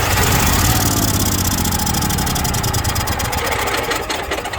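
Onan 5500 motorhome generator cranking on its electric starter with a fast, even rhythm and not catching, then stopping near the end. It is a no-start even though spark, fuel and air have been checked.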